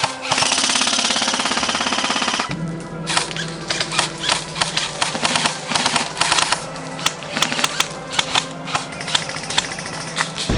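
Airsoft gun fired on full auto in a burst of about two seconds, then many separate sharp shots and short bursts, over background music.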